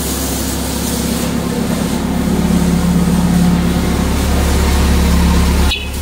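Steady low mechanical hum of running factory machinery, growing louder about two seconds in and dropping out for a moment just before the end.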